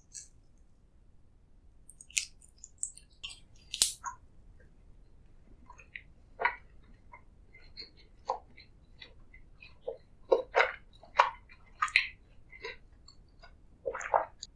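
Close-miked eating: irregular crisp clicks and short wet, squishy chewing bites, coming thicker in the second half.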